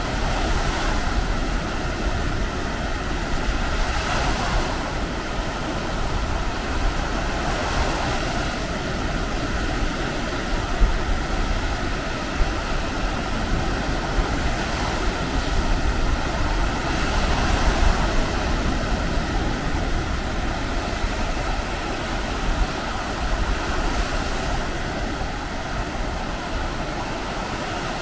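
Baltic Sea surf washing onto a sandy beach, the rush swelling and easing as waves break, with wind buffeting the microphone.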